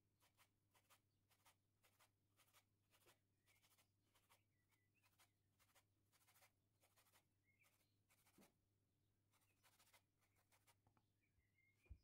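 Faint, irregular scraping strokes of a kitchen utensil in a bowl, about two a second, over a low steady hum, with a few faint chirps.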